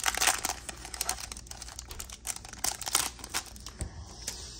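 Foil Pokémon booster pack wrapper crinkling as the pack is opened and handled, with the cards inside being slid and shuffled: an irregular run of sharp crackles and clicks, loudest just after the start and again about three seconds in.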